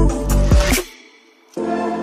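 Background music: a track with a heavy drum beat stops abruptly under a second in. After a short gap, a new section of sustained, held chords begins.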